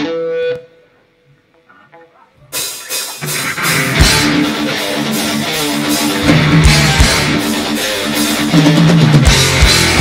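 A live heavy metal band with two electric guitars, bass and drum kit. A brief pitched note and a near-quiet pause come first, then about two and a half seconds in the full band comes in loud, with guitar riffing over kick drum hits.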